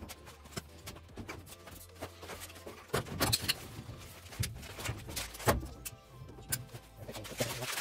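Scattered knocks and clatter of parts being handled at a gas furnace, over a steady low hum.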